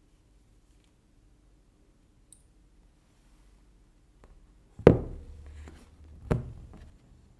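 Hands handling a smartphone in a hard plastic case on a tabletop: a faint click, then two sharp knocks about a second and a half apart, with lighter clicks and taps between them.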